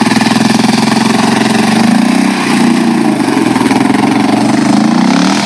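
ATV engine running at a steady idle, with small rises and falls in revs about two seconds in and again near the end.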